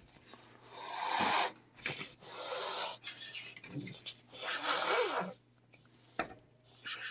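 A defensive, aggressive cat hissing three times in a row, each hiss about a second long with short pauses between.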